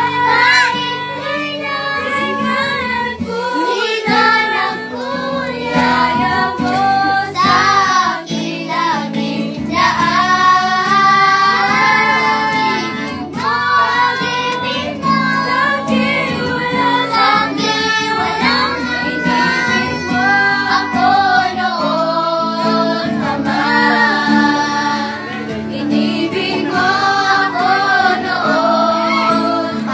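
A group of children singing a Tagalog Christian worship song together, accompanied by an acoustic guitar.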